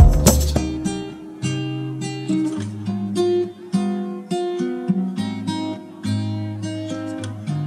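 Background music on acoustic guitar, plucked and strummed notes that ring and fade one after another. A few loud percussive hits come in the first half second.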